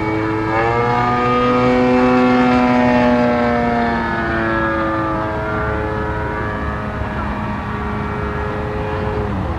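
The two-stroke petrol engine (an MVVS 58 ProSport) of a large RC aerobatic plane, an 86-inch AJ Aircraft ARS-300, running in flight. The engine revs up about half a second in and holds high and loud. It eases off about four seconds in, then the revs drop again just before the end as the throttle comes back.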